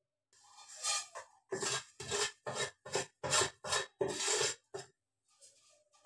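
Wooden spatula scraping and stirring vermicelli around a kadhai as it is lightly fried in oil: a run of about nine rhythmic scraping strokes, roughly two a second, that stops about five seconds in.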